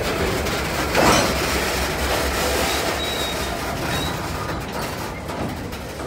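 Freight train boxcars rolling slowly past: a steady rumble and rattle of wheels on the rails, swelling louder about a second in and easing off slightly toward the end.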